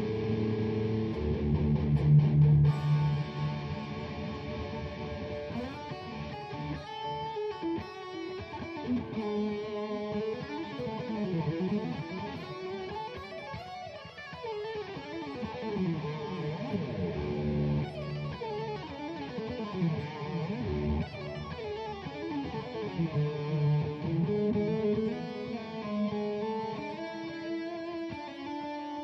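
Ibanez J.Custom electric guitar played solo in a warm-up: runs of single notes with many notes gliding up and down in pitch, over sustained lower notes.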